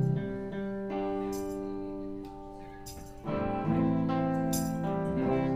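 Guitar playing the opening chords of a song live: a chord rings out and slowly fades, then a louder strummed chord comes in a little past three seconds.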